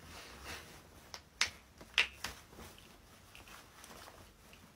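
A few short, sharp clicks bunched together around the middle, over a faint hiss.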